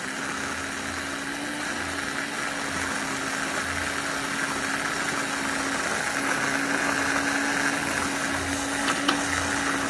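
Electric immersion blender running at a steady speed, its motor giving one constant hum, with the blade down in thick persimmon and cocoa pulp, blending it until smooth. A couple of sharp clicks come near the end.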